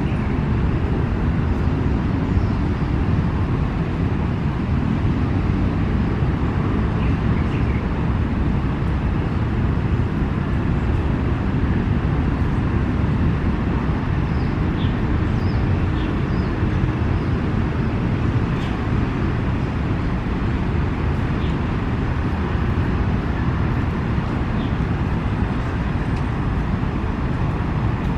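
Steady rumble of city road traffic, with a few faint short high chirps about halfway through.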